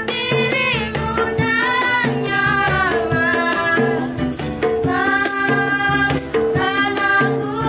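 Women singing a slow Indonesian pop song, accompanied by strummed ukuleles and light hand percussion keeping a steady beat.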